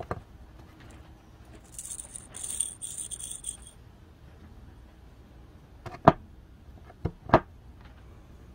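Steel tapered roller bearing handled and taken apart by hand: a brief metallic rattle about two seconds in as the caged roller cone comes out of its cup, then three sharp clinks of the steel parts near the end.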